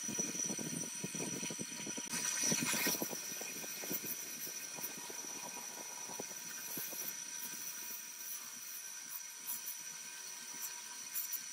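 An electric motor spinning an abrasive wheel, with rusty steel generator parts pressed against it to strip the rust: a steady motor whine under a scraping hiss. The scraping is loudest about two to three seconds in.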